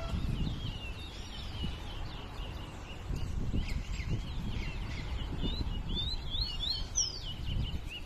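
Caged chestnut-bellied seed finches (towa towa) singing in a song contest: a quick run of short chirped and whistled notes, growing busier past the middle, over a low background rumble.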